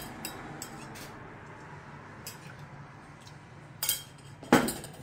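Metal spoon clinking against a stainless steel jug and bowl, a few light clinks at first, then a sharper clatter just before four seconds and the loudest metallic knock about half a second later.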